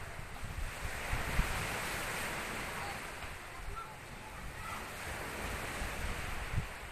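Wind buffeting the microphone, a low irregular rumble, under a steady rushing outdoor noise.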